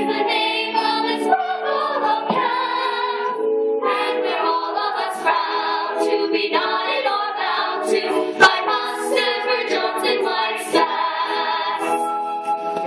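Several women singing a show tune together in chorus, with a sharp click about eight seconds in.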